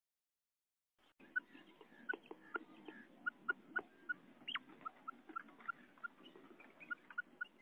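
Female common quail calling: an uneven run of short, faint, high notes, a few a second, starting about a second in.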